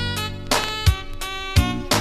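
Instrumental music: a drum beat with low kick thumps and sharp snare hits over sustained keyboard chords and bass, with no vocals.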